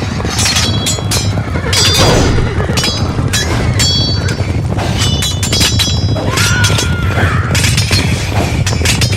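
Medieval battle sound effect: many sharp metallic clashes that ring after each strike, like swords and armour, with men yelling over a steady low rumble.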